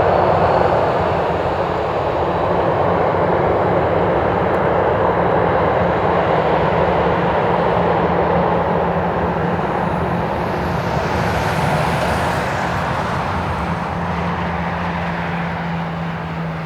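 Boeing 737-900ER's CFM56-7B turbofan engines running as the airliner taxis after landing: a steady jet roar that slowly eases off, with a low steady hum under it and a brief high whine about two-thirds of the way through.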